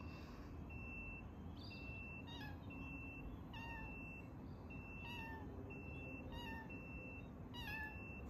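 Persian kitten giving short, high meows, one after another about once a second from about two seconds in.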